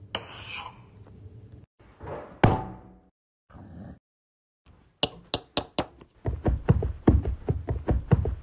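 Foley knocks and thuds: a few scattered sounds and one sharp loud hit early on, then a run of short knocks that quickens into a steady series of about three or four a second.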